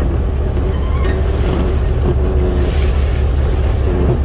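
Fishing boat's engine running with a steady deep drone; around the middle, a rustling hiss as the net's catch of crabs, shrimp and small fish pours out onto the deck.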